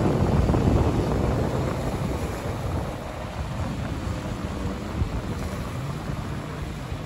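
Wind rumbling on the microphone, easing off after about three seconds, with the faint drone of jet ski engines out on the water.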